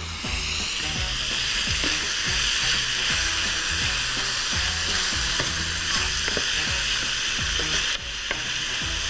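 Cubes of beef with minced garlic and ginger sizzling in hot oil in a frying pan as they sear, stirred with a wooden spoon. The sizzle is steady, with a few light knocks of the spoon against the pan.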